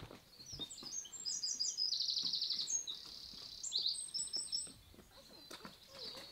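A small songbird singing: a run of high chirping notes with a fast trill in the middle, then a second, shorter phrase, ending about five seconds in.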